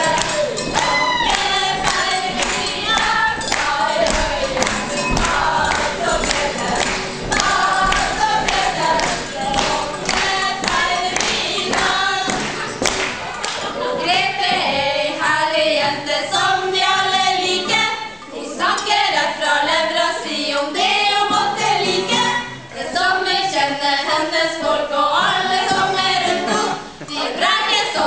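A group of women singing a song together in chorus, with sharp taps in the first half.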